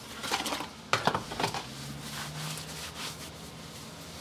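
Handling noises: a few rustles and light knocks in the first second and a half, then a faint steady low hum.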